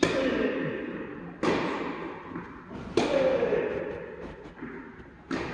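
Tennis rally: rackets strike the ball four times, about a second and a half apart, each hit a sharp pop with a short ringing tail.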